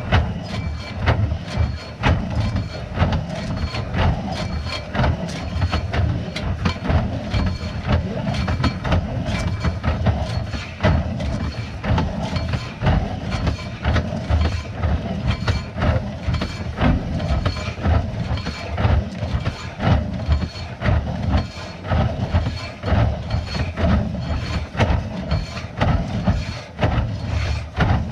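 A machine running steadily with constant rattling and knocking, over a low rumble.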